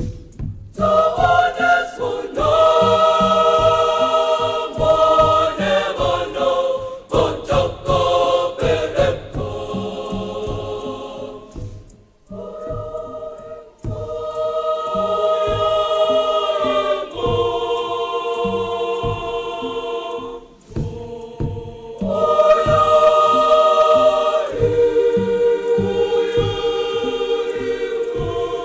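Girls' choir singing a choral set piece in several-part harmony: long held chords that rise and fall, with brief breaks between phrases about twelve seconds in and again about twenty-one seconds in.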